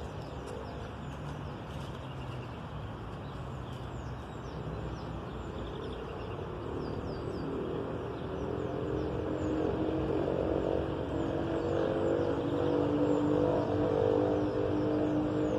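A motor engine draws closer, its steady hum growing louder through the second half. Short high chirps sound above it.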